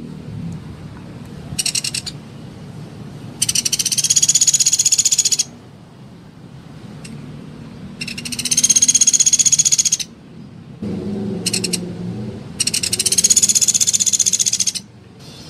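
Pelatuk beras woodpecker giving high, rapid rattling trills: three long ones of about two seconds each, with two short bursts between them.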